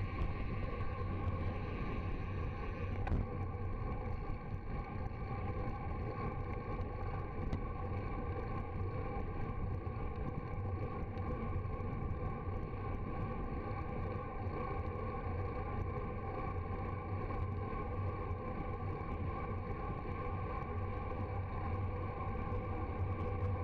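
Steady rumble of wind and road noise on a bicycle-mounted camera during a fast descent at about 40–50 km/h, with a single click about three seconds in.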